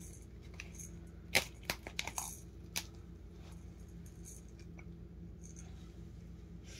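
An animal tearing at a soccer ball: a quick run of sharp cracks and snaps from about a second and a half to three seconds in, then only faint scratching.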